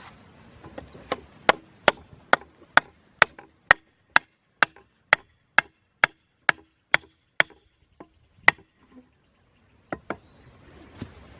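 Wood being chopped with a blade: a steady run of sharp strikes, about two a second, then a few scattered strikes near the end.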